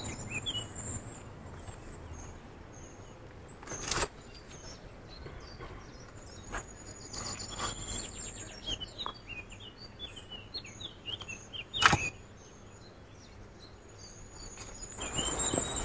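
Small birds chirping and twittering in the background, with two sharp knocks from digging with a shovel in soil, about four and twelve seconds in, the second the louder. A rustling scrape swells near the end.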